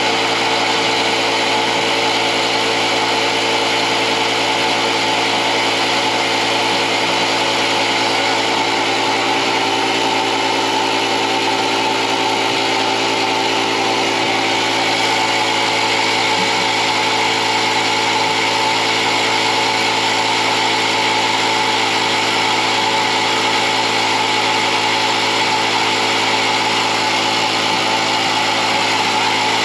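Electric air compressor running steadily, inflating the newly fitted rear motorcycle tyre.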